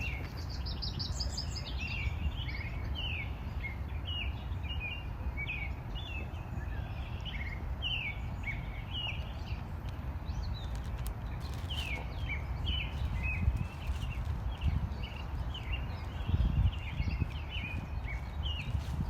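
Small songbirds chirping repeatedly in short, quick notes, with a fast high run of notes in the first second or two, over a steady low rumble.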